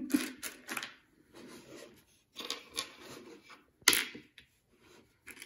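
Small decorative pebbles clicking and scraping against each other and the tray as they are pushed into place by hand, with a sharper clack just before four seconds in.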